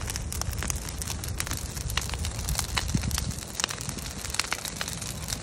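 Brush pile of dry branches burning hard, crackling with many sharp, irregular snaps and pops over a steady low rumble.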